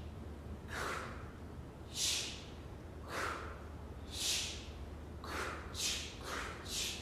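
Choir voices making breathy, unpitched train-chugging sounds, alternating lower and higher hisses. The chugs come about once a second at first and quicken from about five seconds in.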